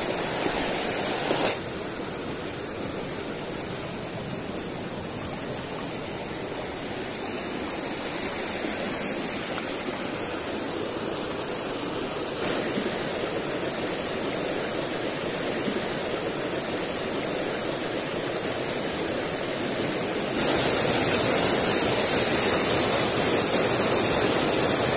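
Rocky mountain creek running over boulders and small rapids: a steady rush of water. It gets noticeably louder about twenty seconds in, as white water comes right up close.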